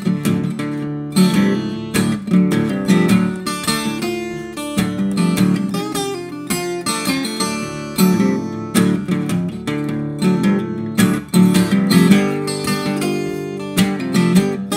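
Acoustic guitar playing an instrumental blues break, picked and strummed in a steady rhythm.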